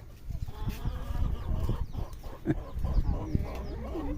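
Backyard chickens clucking repeatedly, over low knocking and handling noises.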